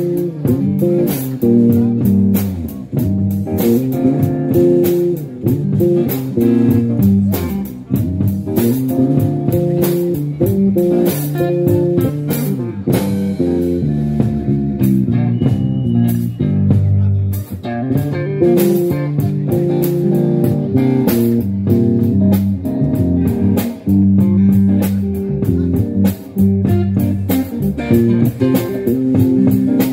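Live amplified band playing an instrumental blues jam: electric guitars, bass guitar and drum kit. The drums drop out for a few seconds near the middle while the guitars and bass play on.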